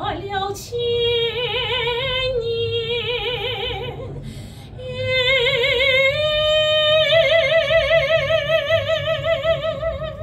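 Female soprano singing in operatic style, holding notes with wide vibrato. After a short breath about four seconds in, she sustains one long, higher closing note that stays on through most of the rest.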